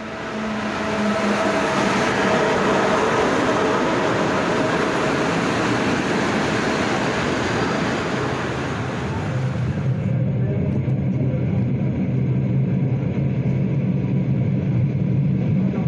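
Train noise: a loud, steady rush of wheels running on rails. About ten seconds in it gives way to a passenger train passing with a steady low hum.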